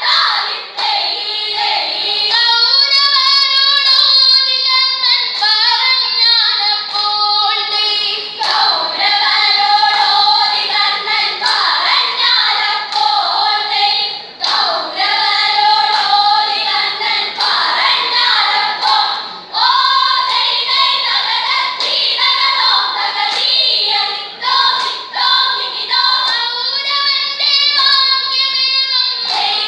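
A group of schoolgirls singing vanchipattu, the Kerala boat song, together in chorus, in phrases with brief breaks between them.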